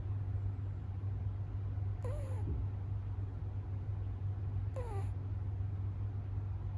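A cat meowing twice, short calls about three seconds apart, each bending up and then down in pitch, over a steady low hum.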